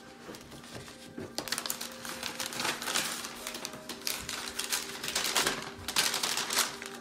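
Paper rustling and crinkling as a folded sheet is handled and opened out, in dense crackles that start about a second and a half in and go on until near the end.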